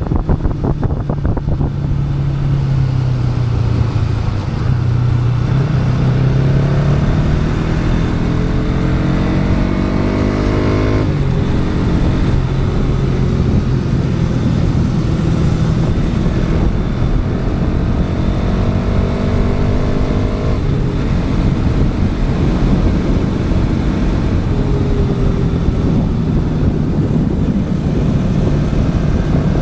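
Bajaj Pulsar NS200's single-cylinder engine heard from onboard while riding, its revs climbing steadily twice and dropping suddenly each time. Wind buffets the microphone in the first second or two.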